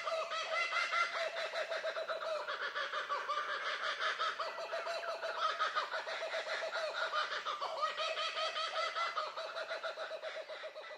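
A dense chorus of birds calling continuously, fading out near the end.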